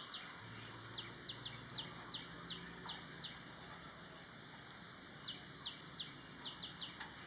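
A small bird chirping: short, sharp, high notes in quick runs of several, with a pause of about two seconds between runs.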